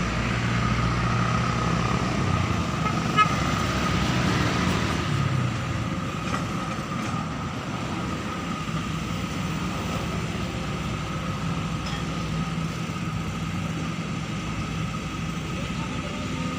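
Excavator diesel engines running steadily, with a constant high-pitched whine over the low hum. A short sharp click comes about three seconds in, and the engine sound drops somewhat about six seconds in.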